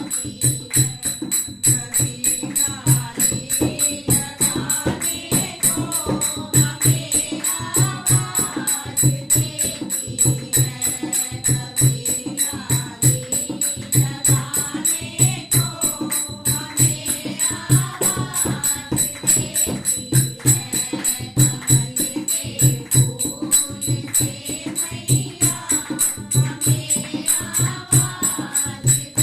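Devotional Hindi bhajan to the mother goddess, sung by voices over a steady drumbeat and jingling tambourine-like percussion on a regular rhythm.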